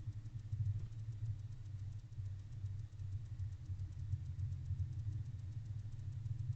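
Steady low hum with a faint, fast, even ticking over it.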